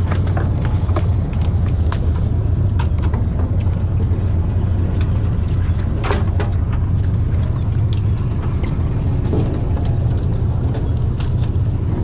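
Steady low drone of the sportfishing boat's engine running, with scattered clicks and knocks from gear and work on deck.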